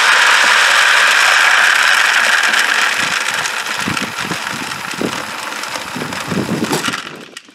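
Wood pellets pouring from the hopper clean-out chute of a Pit Boss vertical pellet smoker into a plastic bucket: a steady rush that thins into separate clatters in the second half and stops near the end as the flow runs out.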